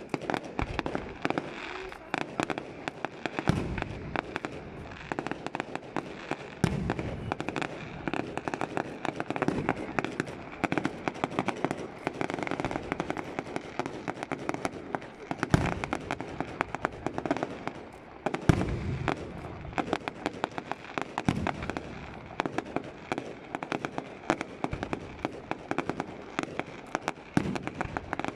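Aerial fireworks show: a continuous fast crackle and popping of bursting shells and stars, with a heavier boom every few seconds.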